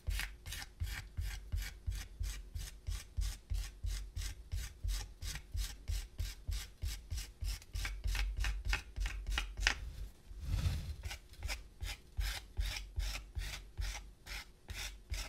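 Metal rib scraping dried underglaze off the carved surface of a dry clay vase in quick, even strokes, about three or four a second, with a brief softer rub about ten seconds in. The scraping clears the excess underglaze to expose the inlaid lines of Mishima inlay.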